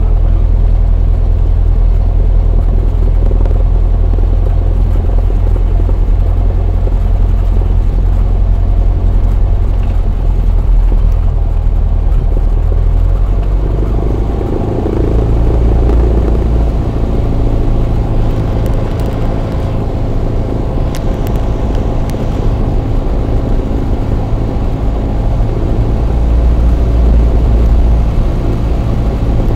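Cessna 172's piston engine and propeller running, heard from inside the cockpit as a loud, steady drone while the plane taxis and lines up on the runway. The engine note shifts about halfway through and swells slightly near the end.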